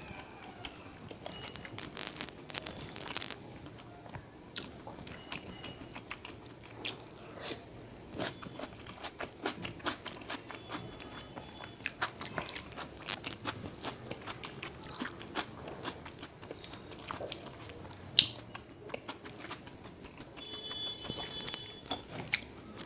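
A person chewing a mouthful of noodles, with many small wet mouth clicks, and one sharper, louder click about eighteen seconds in.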